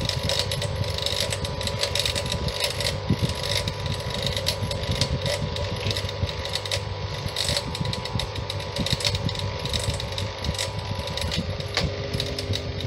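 Small bench grinder running with a steady motor hum, and the scratchy rasp of a short brass rod being ground to a point against the stone. The hum shifts lower near the end.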